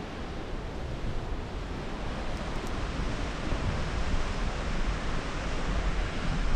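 Rushing mountain creek: a steady hiss of fast water, with some low wind rumble on the microphone.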